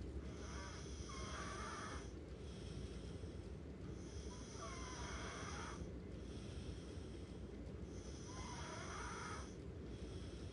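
Snoring: three snores, one every three to four seconds, over steady background noise.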